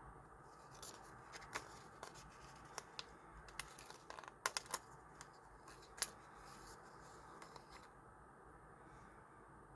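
Faint, scattered sharp clicks and light paper sounds of stickers and stationery being handled on a desk, with the loudest clicks in a short cluster about halfway through and one more a second later.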